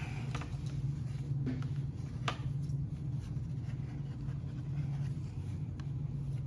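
A steady low hum with a few faint clicks and taps of small parts being handled, the clearest about two seconds in.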